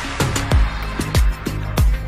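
Background music: an upbeat electronic pop track with a steady kick-drum beat.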